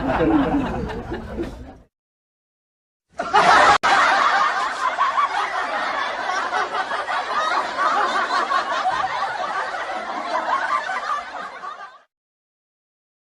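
Laughter sound effects: one laugh fades out in the first two seconds, then after a second and a half of silence a new, longer stretch of laughter runs for about nine seconds and stops abruptly.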